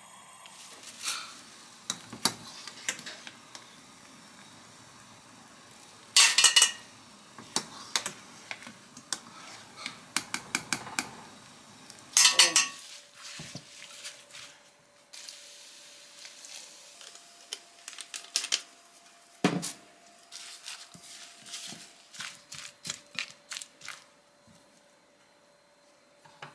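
Kitchen prep clatter: utensils and dishes clinking and knocking, and a spatula stirring vegetable batter in a glass bowl. The loudest clatters come about six and twelve seconds in.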